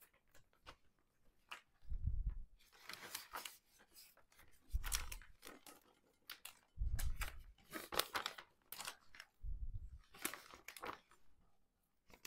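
Clear plastic vacuum-seal bag crinkling as it is handled and pieces of raw chicken are put into it. Several soft, dull thumps run along with the crinkling.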